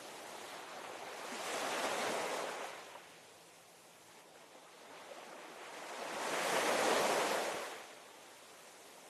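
Ocean waves washing onto a shore, played as a relaxation sound: a steady hiss of surf with two waves swelling and falling away, about 2 and 7 seconds in.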